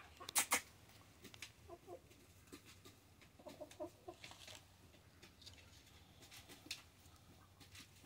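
Chickens clucking softly in short runs of notes, with two sharp knocks about half a second in.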